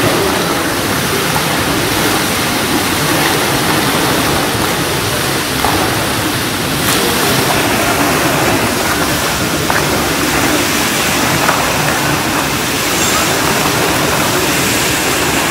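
Indoor fountain water falling and splashing into its pool, a steady rushing hiss.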